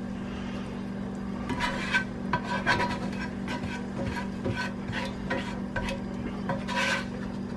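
A spoon scraping and knocking against a cooking pot in quick repeated strokes as a thick borscht mixture is spooned in and stirred, over a steady low hum.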